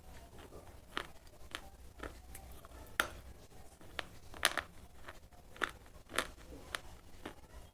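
Slate pencil being chewed close to the microphone: a string of sharp, dry crunches, roughly two a second, at an uneven pace.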